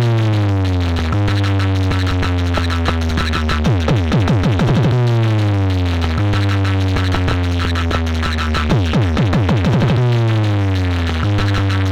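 Electronic dance music with a deep held bass line that steps down in pitch and repeated clusters of falling synthesizer sweeps.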